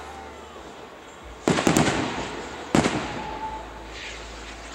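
Aerial fireworks bursting: a quick cluster of sharp bangs about one and a half seconds in, then another loud bang about a second later, each trailing off in a rolling echo.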